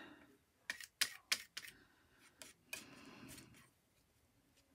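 Metal palette knife dabbing and scraping thick acrylic paint on a paper tag: a handful of light clicks, then a short scrape about three seconds in.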